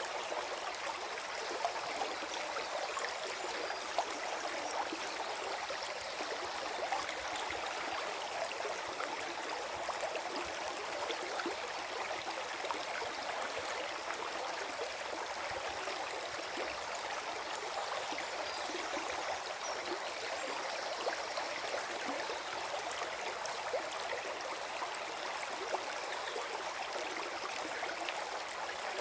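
Small forest stream gurgling and trickling over stones, with a steady, even flow.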